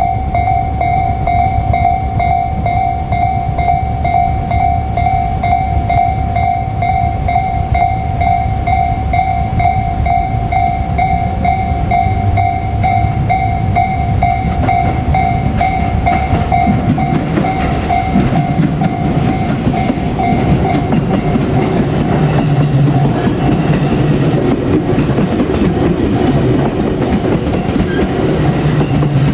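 Japanese level-crossing warning bell ringing in a steady, evenly pulsing rhythm. From a little past halfway, the rumble and wheel clatter of a passing JR Kyushu 787-series limited express train rise and partly cover the bell.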